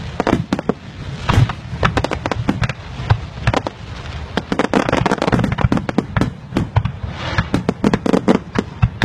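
Fireworks going off: many sharp bangs in fast, irregular succession, with a denser patch of rapid pops around the middle.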